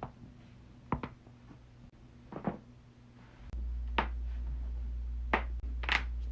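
Human joints cracking: a string of about six short, sharp pops spaced a second or so apart, with a steady low hum coming in about halfway.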